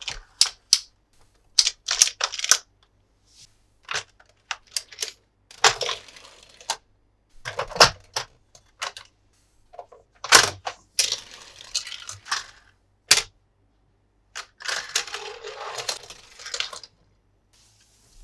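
Hard plastic toy parts and packaging being handled: a run of sharp clicks, snaps and taps, with a few stretches of rustling.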